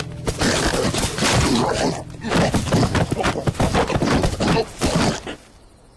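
Cartoon slapstick scuffle sound effects: a rapid, loud flurry of hits, thuds and cracking crashes that stops about five seconds in.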